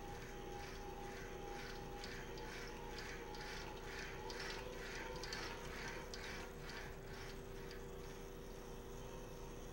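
A motor-driven oscillator cranking a spring and dynamics cart back and forth on an aluminium track. A steady motor hum runs under a rhythmic rolling rattle that comes about twice a second and swells in the middle.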